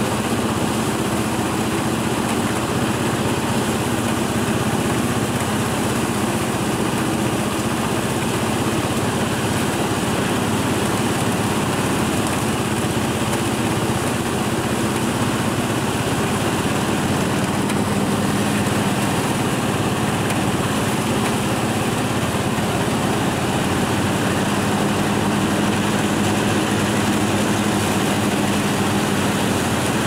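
Rice thresher's engine running at a steady speed, an even drone that holds without change.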